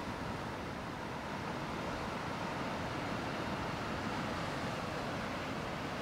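Pacific Ocean surf washing and churning around shoreline rocks: a steady rush of water with no single crash standing out.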